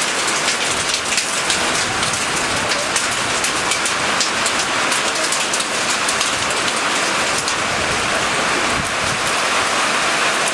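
Light hail pelting down in a dense, steady patter of many small, sharp impacts, mixed with the hiss of falling precipitation.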